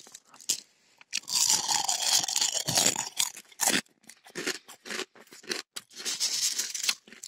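Dry cornflakes rustling and crunching as a hand works through them in a glass bowl. A dense crackle lasts about two seconds, then comes a run of short, separate crunches.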